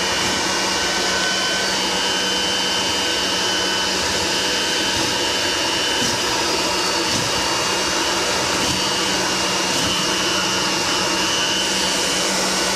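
Leaf blower running steadily at full blast, forcing air through a dryer vent tube to blow out the built-up lint.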